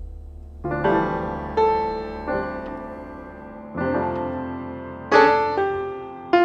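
Background music: piano playing slow chords, each struck and left to ring.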